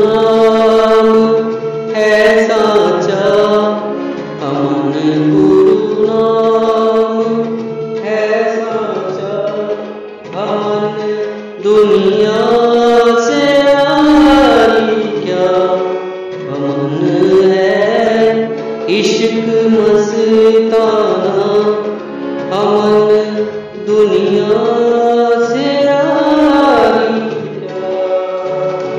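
Background music: a sung Indian devotional melody in long, gliding phrases over a steady held drone.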